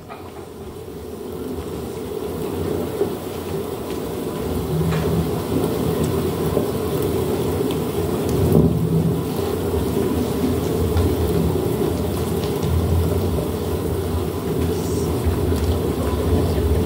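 Storm sound effect: a steady rain-like hiss with low rumbling thunder, swelling over the first few seconds and then holding steady.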